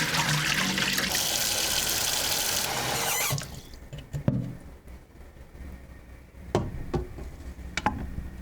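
Water running from a tap for about three seconds, then shut off; a few sharp knocks follow.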